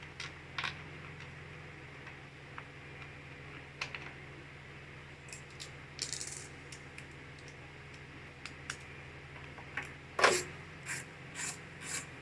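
A cover being fitted onto a Toro lawn mower engine: scattered light clicks and taps of hard parts knocking together, a louder knock about ten seconds in, then a quick run of taps near the end, over a faint low steady hum.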